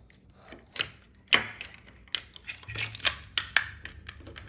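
Plastic parts of a Transformers Ratchet action figure clicking and snapping as it is folded from robot into vehicle mode: an uneven run of small clicks with a few sharper snaps.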